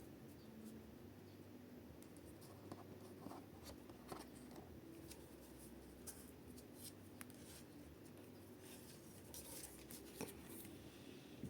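Faint rustling and light clicks of trading cards and foil booster-pack wrappers being handled, over a quiet room hum.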